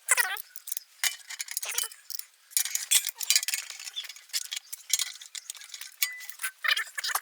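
Irregular metallic clicks, clinks and knocks, as of metal machine parts and tools being handled and fitted together, with brief bits of voice among them.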